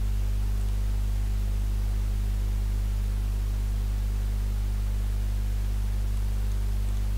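Steady electrical mains hum, a low buzz with a stack of overtones, over a light hiss in the recording's microphone signal.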